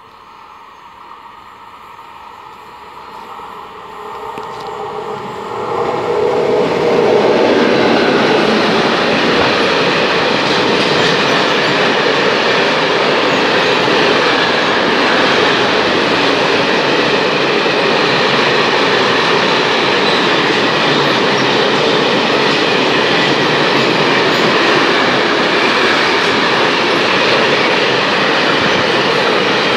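A freight train passing through the station without stopping: it grows louder over the first six seconds or so as it approaches, then the wagons roll past close by as a steady loud rumble and clatter of wheels on rails.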